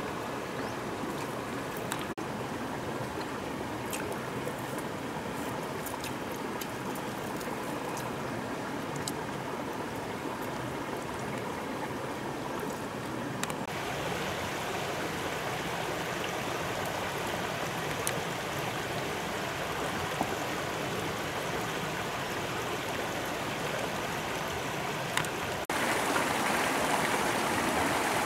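Shallow stream running over stones: a steady rush of flowing water, stepping up in level about halfway through and louder again near the end.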